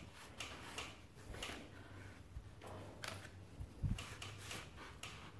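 Faint rubbing and rustling of a cloth wiped over a motorcycle's chrome fork tube, clearing oil that has seeped past the fork seal, with one soft thump about four seconds in.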